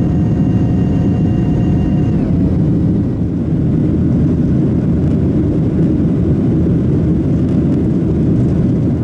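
Boeing 737-800's CFM56 jet engines heard from inside the passenger cabin: a loud, steady rumble with a whine of several tones that dips slightly in pitch and fades out about two seconds in, while the rumble goes on.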